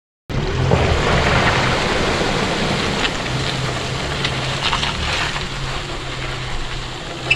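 An engine idling with a steady low hum, over a haze of wind and water noise and a few light clicks. It cuts in just after the start.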